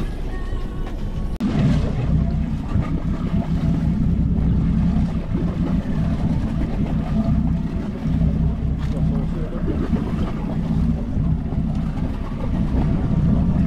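Small fishing boat's motor running steadily, a low even drone.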